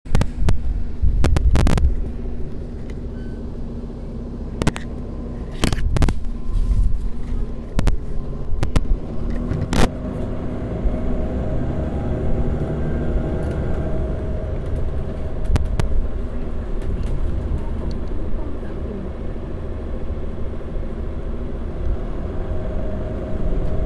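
The Volvo D9B310 9.4-litre diesel engine of a Volvo B9TL double-decker bus running, recorded close to the engine. A steady low rumble, with a few sharp knocks in the first ten seconds.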